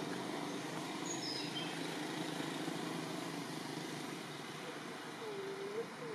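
Steady forest background noise, with a few short high bird chirps about a second in and a short low call that dips and rises in pitch near the end.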